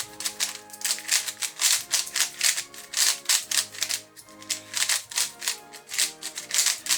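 Cheap plastic speed cube, freshly lubricated with a silicone lubricant, being turned rapidly: a fast, irregular run of plastic clacks from the layers. Background music with held notes plays underneath.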